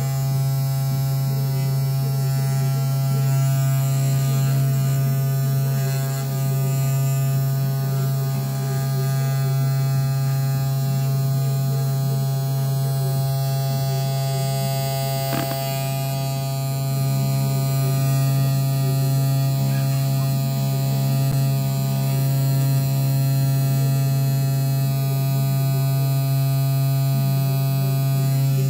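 Spindle motor of a DIY CNC engraver running steadily while its pointed engraving bit cuts into a printed card: a steady electric buzz with a strong low tone. A single brief click about fifteen seconds in.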